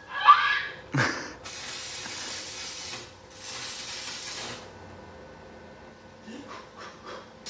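Electric arc welding: a sharp crack as the arc strikes about a second in, then two bursts of hissing arc, each a second or so long, with a short break between them.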